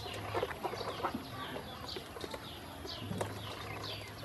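A cluster of ducklings peeping continuously, many short, high, downward-sliding peeps overlapping, with a few sharp taps of bills against the stainless steel bowl and drinker.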